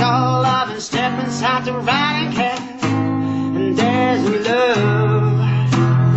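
A man singing while strumming chords on an acoustic guitar, with a couple of brief breaks between strummed chords.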